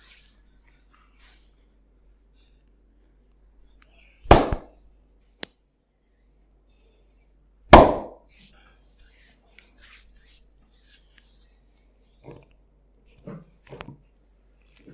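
Hands slapping during a massage: two loud sharp smacks about three and a half seconds apart, with a lighter click between them and soft rubbing and light knocks of hands on skin around them.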